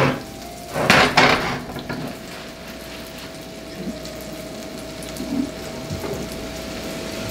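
Cookware clanks on the stove at the start and again about a second in, then butter sizzles steadily in a hot cast-iron skillet, the sizzle growing louder near the end as pieces of wine-marinated chicken are laid in to sear.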